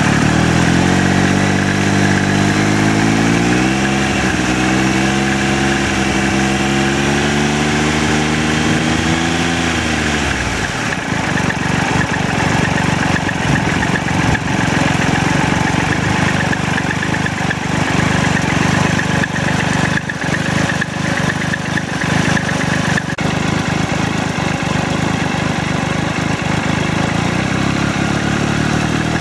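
Triumph Tiger Explorer's three-cylinder engine running, its note climbing in pitch with a step about four seconds in. About ten seconds in the engine note falls away, and a steady rumble with irregular rattling ticks continues; this is the rattling noise the owner means to have the dealer sort out.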